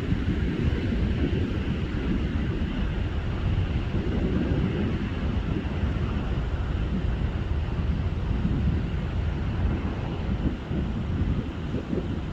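Wind buffeting the microphone, a steady low rumbling roar with uneven gusts and no clear rotor beat.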